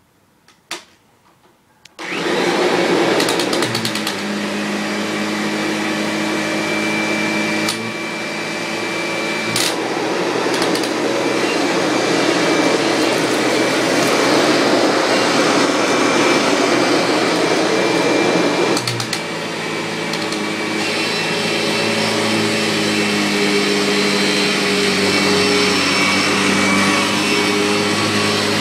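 Kirby G6 upright vacuum cleaner switched on about two seconds in and running loudly while it vacuums, its motor pitch shifting a few times as it is pushed along.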